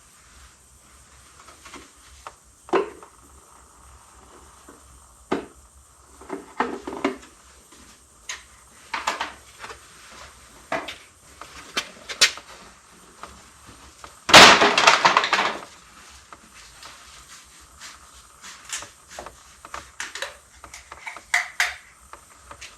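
Scattered clicks, knocks and light clatter of plastic oil bottles and caps being handled while topping up hydraulic oil, with one louder noisy burst lasting about a second roughly two-thirds of the way through.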